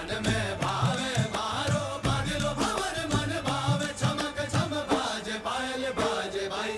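Indian-style music with a chanting voice over sustained low notes and regular percussion.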